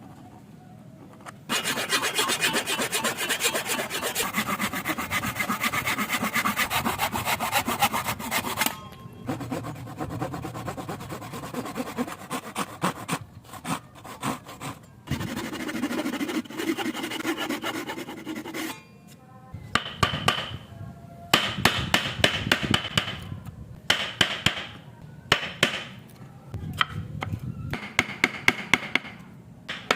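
Hand saw cutting wood in fast, even strokes for several seconds. It is followed by quieter scraping and rubbing on wood, then a series of sharp separate knocks as the wood is worked.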